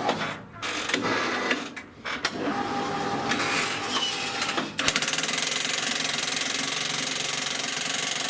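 Homemade power shovel's jackhammer attachment: uneven machine noise, then, a little before halfway, it starts hammering with a steady, very rapid pounding.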